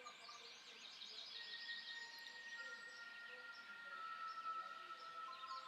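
Faint birdsong: many quick chirps and twitters overlapping, with a few long held tones underneath that come in one after another.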